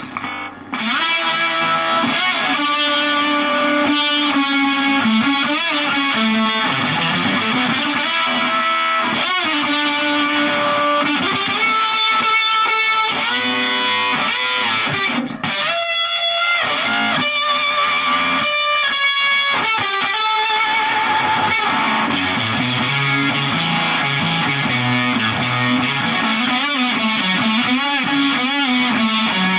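Electric guitar, a Vanzandt TLV-R2 Telecaster, played through a Fender Shields Blender octave fuzz into a Laney LG20R amp: a thick, sustained fuzz tone with single-note lines and string bends. It breaks off briefly about halfway through, and the last part moves to lower riffing.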